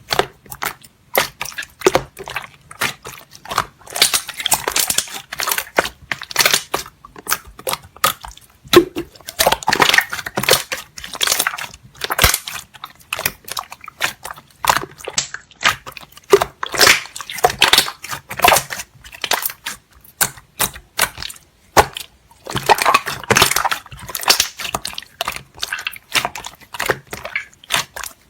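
Slime being squeezed and worked by hand, giving dense crackling and popping clicks that come in clusters every few seconds.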